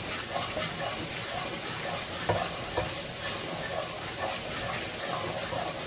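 White sugar and oil frying over low heat in a small nonstick saucepan while a wooden spatula stirs them, with a couple of light knocks of the spatula on the pan midway. The sugar is being melted toward caramel for a sweet and sour sauce.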